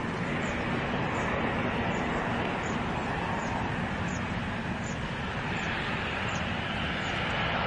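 Jet engines of a formation of seven CASA C-101 jet trainers on approach to land, heard as a steady, even rushing noise.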